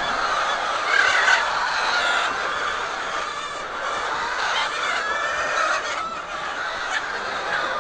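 A large flock of laying hens calling at once: a dense, continuous din of many overlapping voices.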